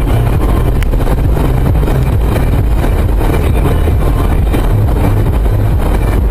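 Steady low rumble inside a car's cabin at highway speed, about 130 km/h: tyre, engine and wind noise picked up by a dashcam.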